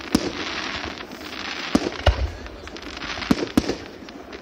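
Fireworks and firecrackers going off: a continuous crackling hiss broken by about five sharp bangs, the loudest about two seconds in with a low boom.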